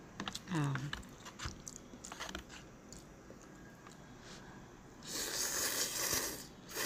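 Instant cup noodles being slurped off chopsticks for about a second and a half near the end. Before that, small clicks and mouth noises of eating.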